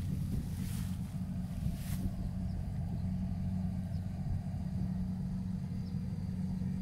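An engine running steadily with a low, even hum, with a couple of soft rustles in the first two seconds.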